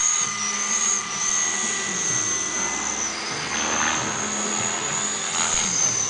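Radio-controlled model helicopter flying: a steady high-pitched whine from its motor and rotor that dips slightly in pitch a few times as it manoeuvres.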